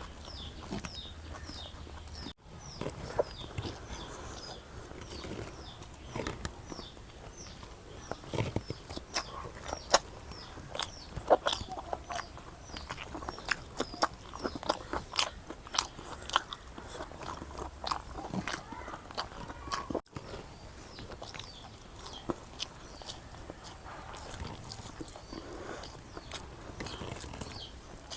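Close-up eating sounds: a person biting and chewing food, with sharp crunches and wet clicks, eating a meal that includes raw onion and green chilli. Small birds chirp in the background during the first couple of seconds.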